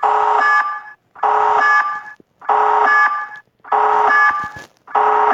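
Nuke alarm sound from a fake-alarm app: loud, evenly pulsed blasts, five in a row, each a little under a second long with a short gap, made of several steady tones with a higher note joining partway through each blast.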